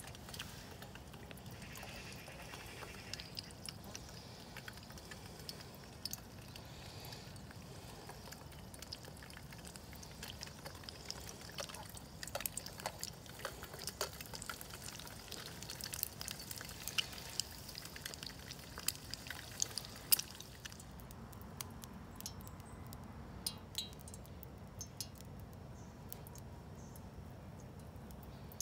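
An egg frying in oil in a small pan on a gas camping stove: sizzling with frequent crackles and spits. The sizzle dies away about two-thirds of the way through, leaving occasional ticks.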